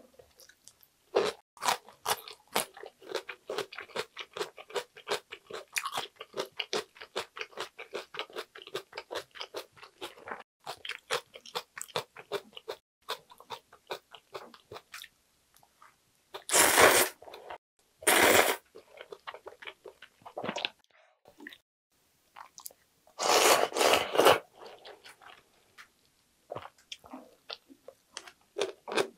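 Close-miked crunching as cubed radish kimchi (kkakdugi) is chewed: a long run of crisp, rapid crunches. Past the middle come three loud slurps of ramen noodles, the last one longer, then more crunching near the end.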